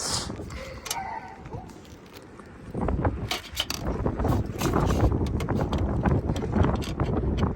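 Metal rattling and clicking as a roof turbine vent is worked loose and taken off, with loud low rumbling handling noise from about three seconds in.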